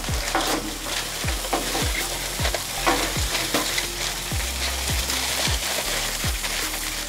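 Ground turkey meat sizzling steadily on a hot Blackstone flat-top griddle. Background music with a deep, regular bass beat plays underneath.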